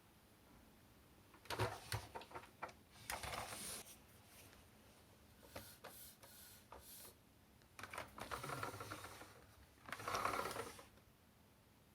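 Irregular bursts of clicking, tapping and rattling, as of hard objects being handled, with quiet gaps between them.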